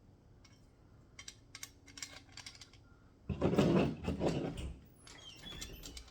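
Thin steel puzzle pieces being handled and slotted together: a run of light metal clicks and taps, then a longer, louder scraping rustle about three seconds in as a piece slides into its slot, followed by a few more small ticks.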